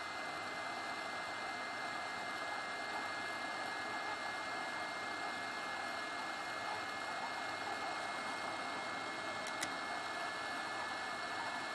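WEP 858D hot-air rework station blowing a steady hiss of hot air through its nozzle onto a surface-mount chip, with a steady two-tone whine from its fan, heating the solder to desolder the chip. A small click about ten seconds in.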